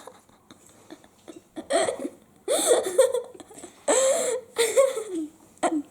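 A high-pitched voice laughing in about five short bursts, with quiet breaths between them.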